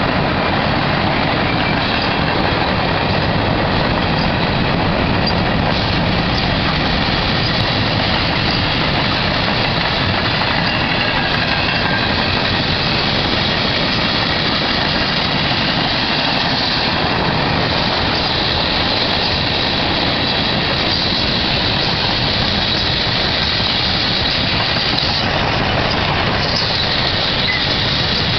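Freight train cars (covered hoppers, tank cars and container well cars) rolling past: steel wheels on the rails making a steady, loud, even rumble.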